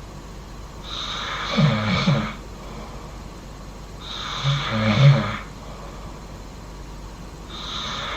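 A person snoring loudly in sleep, one snoring breath about every three seconds. Each is a breathy rush that ends in a low, rattling snore.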